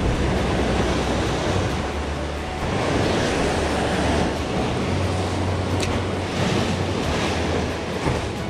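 Sea waves breaking and washing over shoreline rocks in surges, with wind buffeting the microphone as a low rumble.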